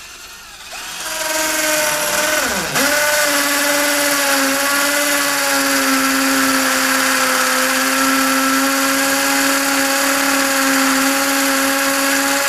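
Brushless 48V cordless drill starting up about a second in and drilling into a wall. Its motor pitch dips briefly about two and a half seconds in, then it runs at a steady whine.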